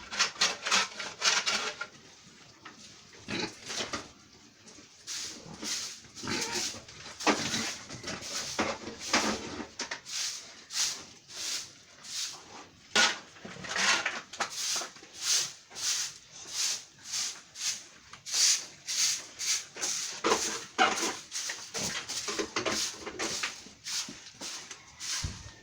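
Pigs eating, a steady run of chewing and munching sounds, about two bites a second.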